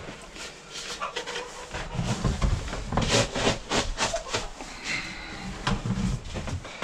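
Plastic trash-can feed bins being handled: lids knocked and scraped, with low thumps and a quick run of sharp clicks about three seconds in.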